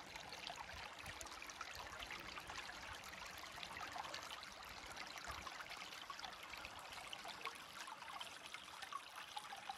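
Shallow stream of clear water trickling over rocks and stones: a steady, faint babble of small splashes.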